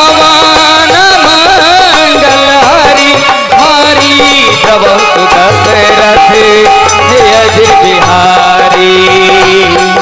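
Instrumental interlude of Indian devotional music: a dholak drum beat under a keyboard melody with sliding, bending notes.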